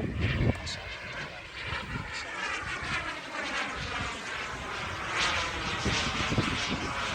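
Turbine engine of a Boomerang Ranger RC model jet whining in flight. The whine falls in pitch over the first few seconds as the jet passes, then a louder rushing noise comes in about five seconds in.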